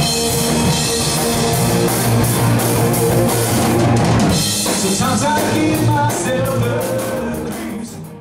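Live rock band playing: distorted electric guitar, bass guitar and drum kit, with bending guitar lines in the second half. The music fades out near the end.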